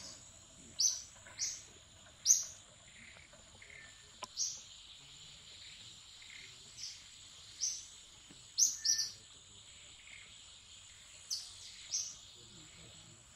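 Wild birds giving short, sharp high-pitched chirps at irregular intervals, about a dozen in all, over a steady high-pitched insect drone.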